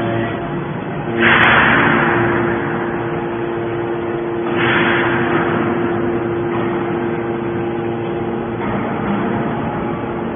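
Hydraulic scrap metal baler running, its pump giving a steady hum, with two louder rushes of noise, about a second in and near the middle.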